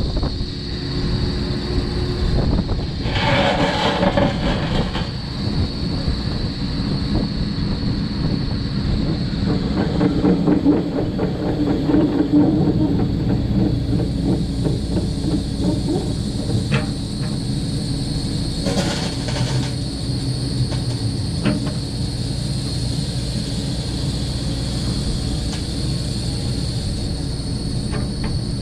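Takeuchi TB1140 crawler excavator running and working, its engine steady under a constant high whine, with the clanking of steel tracks as it travels and the arm and bucket moving. Two louder rasping bursts stand out, a few seconds in and again about two-thirds of the way through.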